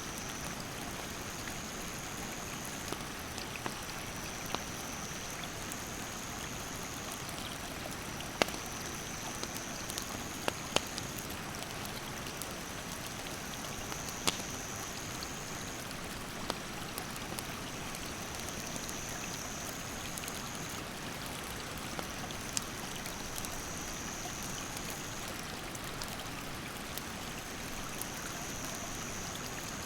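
Stream rapids rushing steadily, with a wood campfire crackling in scattered sharp pops, a few of them loud. An insect trills high in stretches of two or three seconds, one after another.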